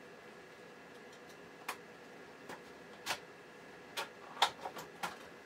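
Tools and small parts handled on a workbench: about seven irregular sharp clicks and taps, the loudest about four and a half seconds in.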